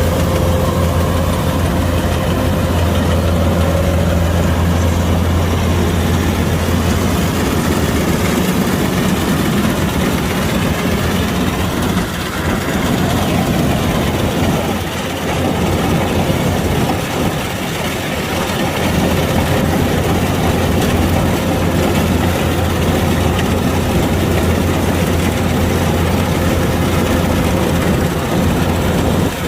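Kubota DC-105X rice combine harvester's diesel engine running steadily under load, a loud, constant low hum with machinery noise over it.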